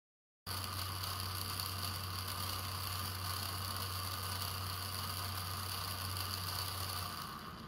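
Small DC gearmotor running its open three-spur-gear reduction with the top two gears swapped for higher output speed: a steady whir with a low hum and a few steady high tones. It starts about half a second in and drops away near the end as the power is taken off.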